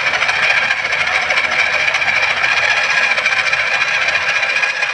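Heavy electric drill running steadily as it spins a hone inside a Massey Ferguson 385 engine's cylinder liner, polishing the bore: a continuous grinding whir with a fast rattle.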